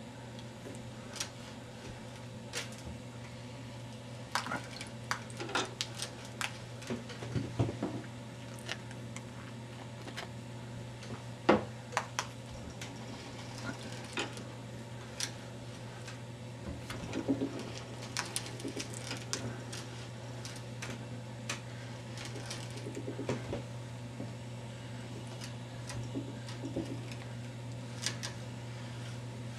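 Hand die stock turning a 14x1 mm left-hand thread die on a steel rifle barrel's muzzle, cutting threads: irregular metallic clicks and ticks from the die and its handle, with a steady low hum underneath.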